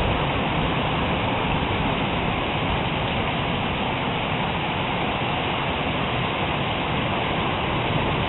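Heavy thunderstorm rain falling steadily, an even, unbroken hiss of water.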